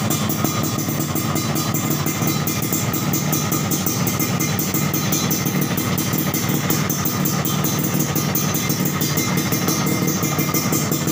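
Suzuki Satria single-cylinder two-stroke motorcycle engine idling steadily through an aftermarket Brat chrome exhaust, with the rapid, even pulsing of a two-stroke.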